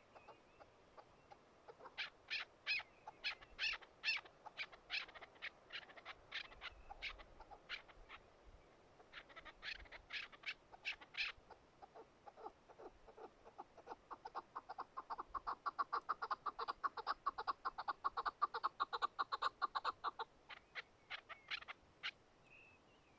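Chukar partridge calling: a string of separate chuck notes, then a fast run of chucks, about six a second, that grows louder and breaks off about 20 seconds in, followed by a few scattered notes.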